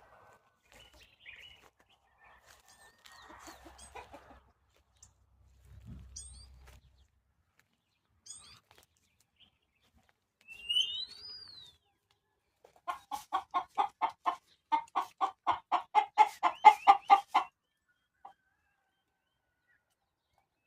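Chicken clucking in a fast, even run of about twenty clucks lasting four to five seconds, the loudest sound here. Before it come a few faint scattered bird chirps and one short rising-and-falling whistled call.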